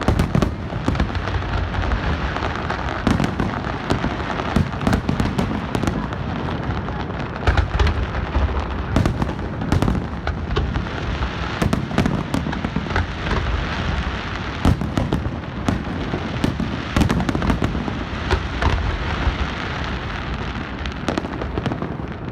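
Large aerial fireworks display going off in rapid succession: many sharp bangs and crackles over a continuous low rumble, without a break.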